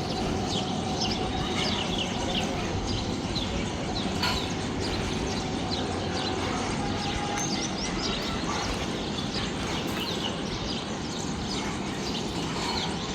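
Small birds chirping repeatedly over a steady low rumble of outdoor background noise.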